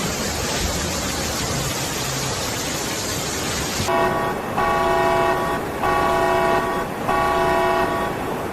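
A steady rushing noise, then, a little under four seconds in, a vehicle horn honking in long repeated blasts, about one a second.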